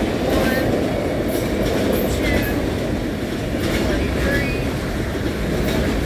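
Multilevel autorack freight cars rolling past close by: a steady loud rumble of steel wheels on rail, with scattered clicks from the wheels over the rail joints.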